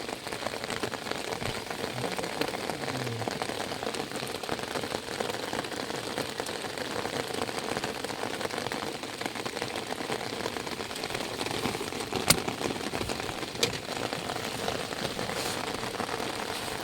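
Heavy rain falling steadily, a dense even patter. Two short sharp taps stand out, about twelve and thirteen and a half seconds in.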